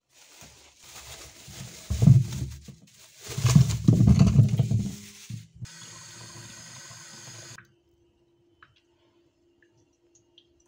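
Kitchen tap water running over apples in a plastic colander, with heavy thuds as the apples knock and tumble in it. The flow turns into a steady stream and cuts off suddenly about three-quarters of the way through, leaving only a few light clicks of handling.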